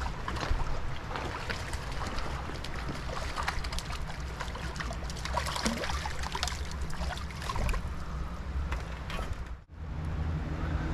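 Small creek water running and babbling, full of small splashes over a steady low rumble; the sound drops out abruptly for a moment near the end.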